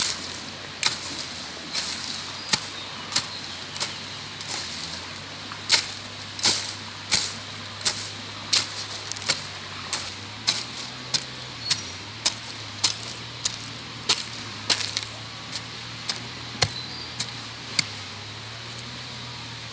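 Hand hoe chopping into soil and roots: a steady run of sharp strikes about every half second or so, with one short pause early on and the strikes stopping shortly before the end. A faint low hum runs underneath.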